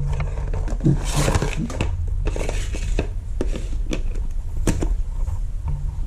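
Hard plastic clicks and rattles as an Apple 35W dual USB-C power adapter is handled and its plug pushed into an extension reel's socket, a few separate knocks over a low steady hum.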